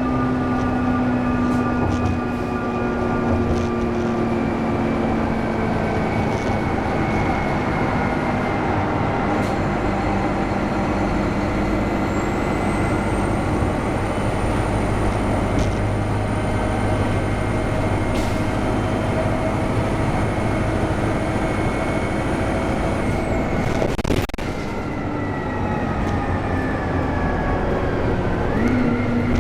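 NABI transit bus's turbocharged diesel engine running at highway speed, with a thin high turbo whistle that rises about halfway through, holds steady for some ten seconds, then falls away. A sharp click with a brief drop in engine sound follows, and the engine note climbs again near the end.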